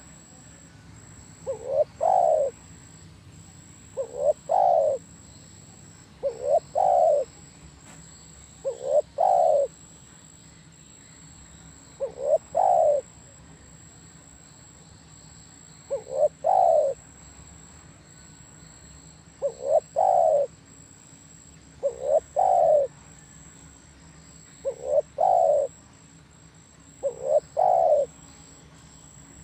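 Spotted dove cooing: a phrase of one or two quick notes ending in a longer, louder coo, repeated about every two to three seconds.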